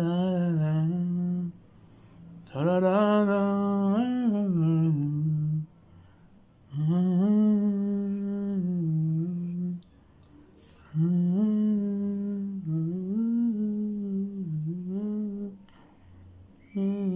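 A voice humming a wordless tune in four phrases of a few seconds each, with short pauses between them.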